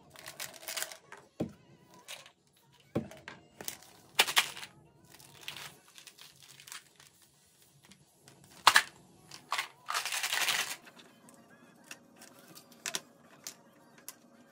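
Plastic vitamin bottles and pills being handled: a string of clicks, knocks and short rattles from caps and pills. About ten seconds in, a bottle of omega-3 softgels is shaken for under a second to loosen the pills stuck at the bottom.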